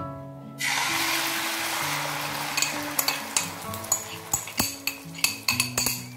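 Beaten egg omelette mixture hitting hot oil in a frying pan: it starts to sizzle loudly about half a second in, then sizzles more softly while a spoon and the glass bowl clink and scrape against the pan as the batter is spread. Background music plays underneath.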